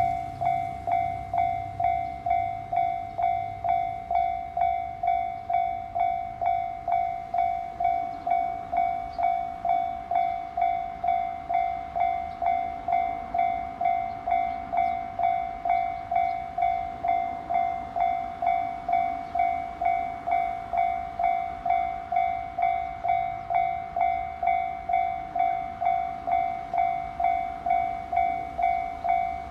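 Japanese railway level-crossing warning alarm dinging steadily, one pitched ding with overtones repeating at a little under two strikes a second: the crossing is closed for an approaching train.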